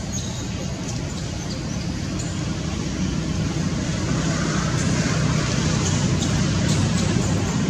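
Steady low rumble of road traffic, slowly growing louder.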